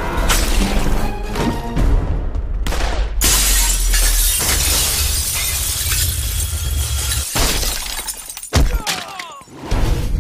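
Glass shattering and a long crash of falling debris over dramatic film music, with a low rumble under it. It drops away near the end, where there is one sharp impact.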